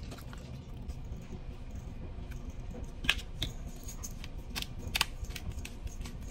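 A few sharp clicks and clinks of kitchen utensils being handled, the loudest about halfway through, over a low steady hum.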